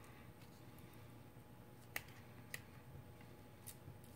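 Near silence broken by a few faint sharp clicks, the clearest two about half a second apart near the middle: a precision screwdriver tip working at the plastic and metal of an LG G5's detachable bottom module.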